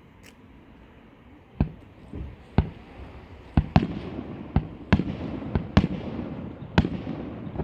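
Fireworks shells bursting overhead, about eight sharp bangs at uneven intervals starting a second and a half in, with rumbling echoes filling the gaps between them.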